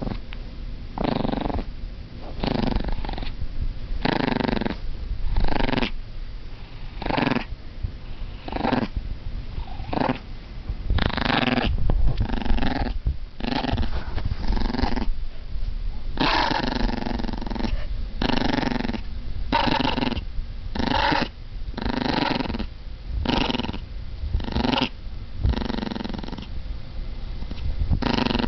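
Dog growling in a long run of short rumbling bursts, about one a second with a few longer ones, a low grumble that sounds like a motorbike engine.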